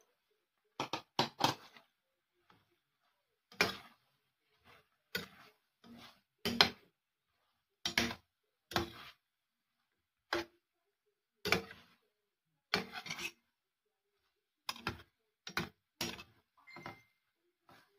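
A metal spoon scraping and knocking against a stainless steel pan while stirring a beef and vegetable stir-fry, in short irregular strokes with quiet gaps between them.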